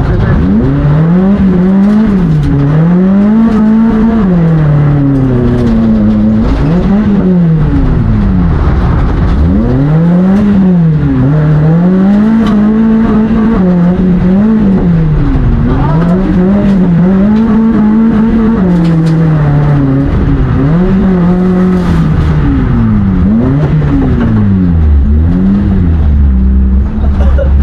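Engine of a tuned, stripped-out autocross car heard from inside the cabin, driven hard on a dirt course. The revs climb and drop back every second or two as it is worked through the corners, over a rumble of tyres and dirt. Near the end it settles to a lower, steadier note.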